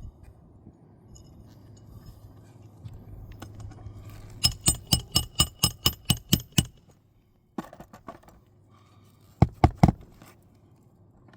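Hammer driving a roofing nail into a shingle: a quick run of about ten ringing metal strikes, about four a second, then three more strikes near the end.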